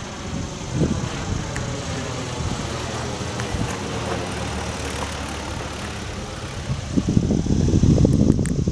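Aircraft engine noise as a plane passes, a steady rushing sound that swells into a louder, rougher rumble about seven seconds in and falls away at the end.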